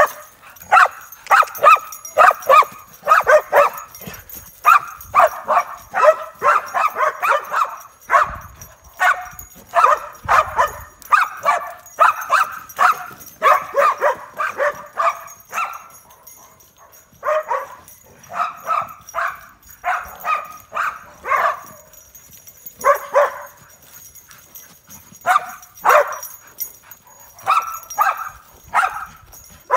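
A dog barking and yipping in quick runs of several barks a second, with short pauses between the runs.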